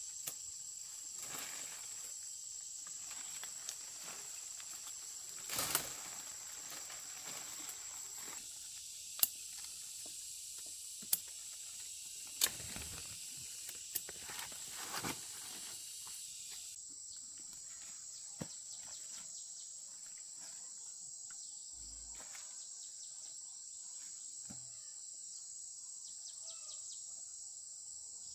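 Steady, high-pitched insect chorus, with several sharp clicks or snaps in the first half.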